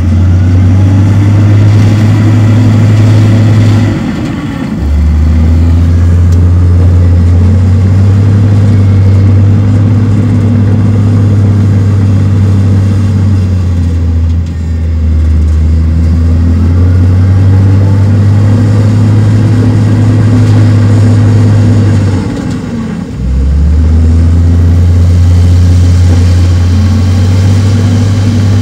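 Heavy diesel engine of earthmoving machinery running hard under load. Its note dips briefly about four seconds in and again about three-quarters of the way through, then comes back up.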